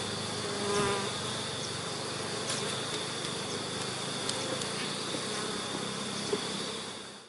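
Honeybees buzzing around a hive entrance: a steady hum with an even high whine running above it.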